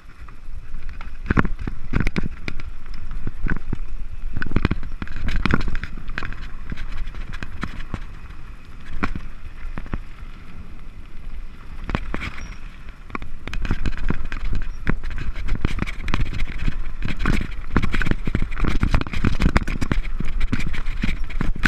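Mountain bike descending a rough dirt and gravel trail, heard from a camera mounted on the bike: tyres crunching over stones, many irregular knocks and rattles from the bike over bumps, and a steady low rumble of wind and vibration on the microphone.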